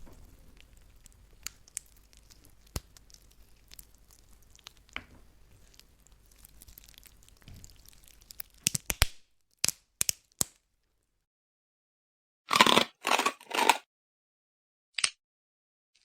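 Bone-cracking sound effects. Faint scattered crackles and clicks run for the first eight seconds or so. Then comes a quick string of sharp cracks, followed by three loud crunches about thirteen seconds in and a single crack near the end.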